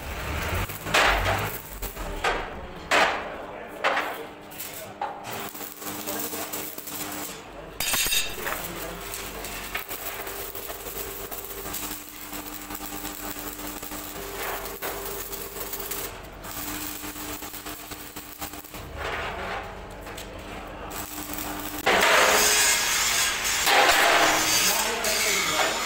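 Metalworking on steel concrete-mixer drums: a handful of sharp knocks in the first five seconds, then a quieter stretch with faint steady hum. A loud, rough hiss of metalwork, welding or grinding, takes over for the last four seconds.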